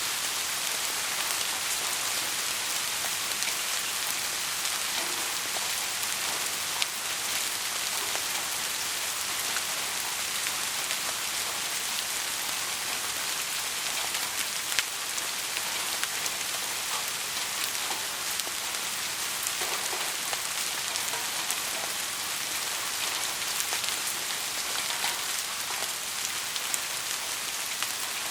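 Steady heavy rain: a dense, even hiss dotted with the ticks of individual drops, a couple of them sharper than the rest, with no thunder.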